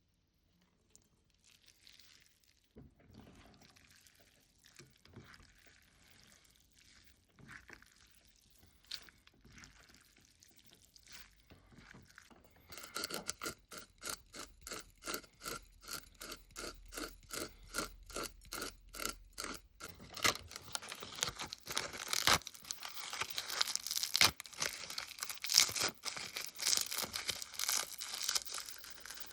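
Kitchen food-preparation sounds: faint small handling noises, then a quick, even run of taps about four a second, then denser scraping and clatter that grows louder toward the end.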